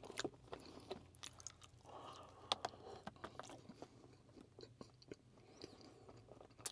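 A man chewing food close to a clip-on microphone, faint, with scattered small clicks from chopsticks on a plastic food tray.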